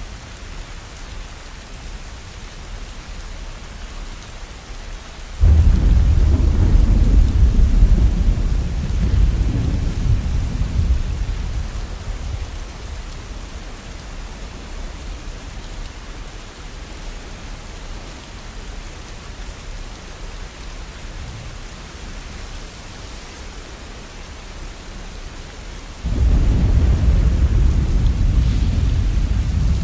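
Steady rain with two rolls of thunder: a deep rumble starts suddenly about five seconds in and dies away over several seconds, and a second begins near the end.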